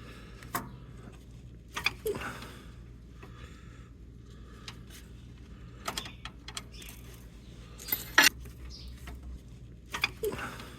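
Metal hand tools clinking and clanking against each other and the steel underside of a truck, in scattered knocks, with one loud ringing clank about eight seconds in.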